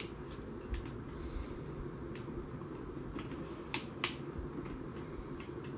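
Light clicks and taps of the disassembled blaster's plastic and aluminium parts being handled and shifted, with two sharper clicks close together about four seconds in, over a steady low room hum.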